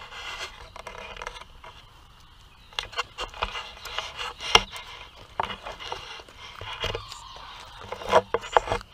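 Handling noise: scraping and rubbing right on the camera's microphone with irregular sharp clicks and knocks, loudest about halfway through and again near the end.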